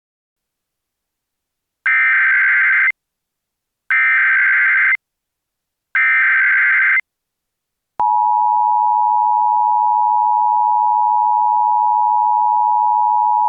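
Emergency Alert System SAME header for a Child Abduction Emergency (AMBER Alert): three one-second bursts of digital data tones about a second apart, then the two-tone EAS attention signal starts about eight seconds in and holds steady.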